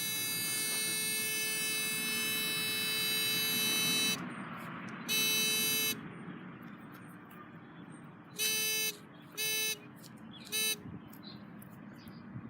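Metal detector sounding its buzzing target tone, held steady for about four seconds and then repeated as four short beeps of different lengths, signalling buried metal under the coil.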